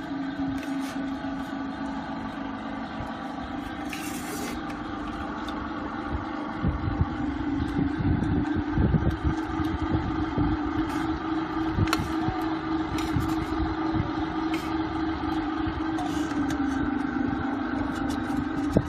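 Small electric feed extruder (pellet machine) running: a steady motor hum, joined about a third of the way in by louder, irregular knocking and crackling.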